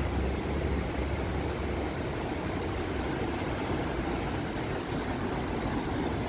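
Steady outdoor rush and low rumble: river water pouring over a low weir, with wind buffeting the microphone and traffic on the bridge.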